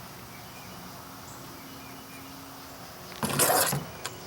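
Old trimmer head being worked off a Troy-Bilt string trimmer's shaft by hand: a faint steady hum, then one brief loud handling noise lasting under a second, about three seconds in.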